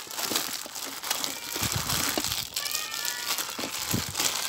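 Thin plastic bag crinkling and rustling in irregular bursts as a bagged hand works cooked rice in a plastic bowl.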